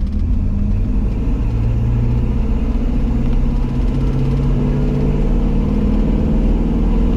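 LS-swapped 1975 GMC K15 4x4 pickup under way, its 5.3 L V8 out of a 2001 Suburban running steadily. The engine note rises a little about a second in and then holds, over a steady low road rumble.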